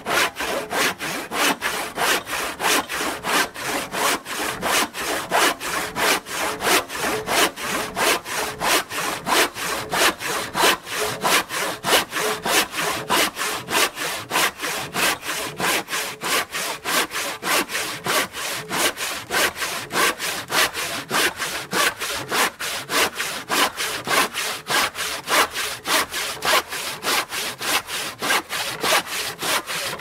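Manual hand saw cutting through timber in a steady, even rhythm of back-and-forth strokes, about two or three a second.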